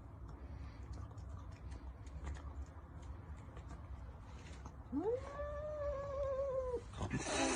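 A low steady background with faint clicks, then about five seconds in a domestic cat gives one long drawn-out yowl that rises and holds its pitch for about two seconds. A short hissing burst follows near the end.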